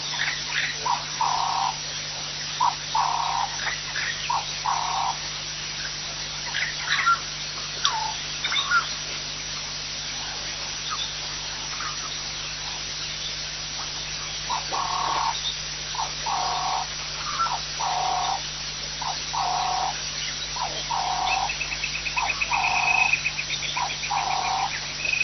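A frog at a waterhole calling: a rhythmic series of short calls, about one a second, in two runs. Scattered bird chirps come between them, and a fast high trill starts near the end.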